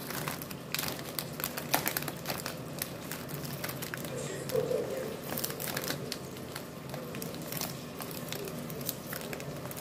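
Scissors cutting along the edge of a plastic package wrapper, the film crinkling and crackling with each snip.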